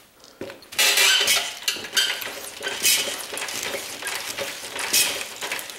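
Metal rattling and clanking from a home-built go-kart trike's steel box-tube frame and coil-spring shocks as it is bounced on its suspension, with a jolt about once a second.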